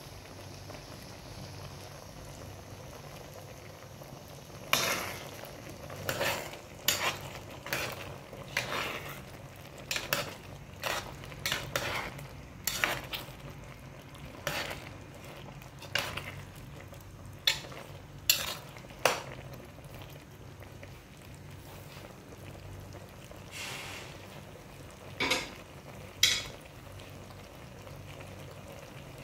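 A pot of thick cream stew bubbling at a simmer, with a run of sharp clinks of a utensil against the pot from about five seconds in to about twenty, and a few more near the end.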